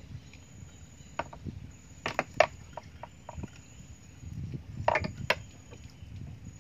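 A few sharp knocks and clicks from fishing tackle being handled in a small boat, the loudest clustered about two seconds in and again about five seconds in, over a low steady rumble.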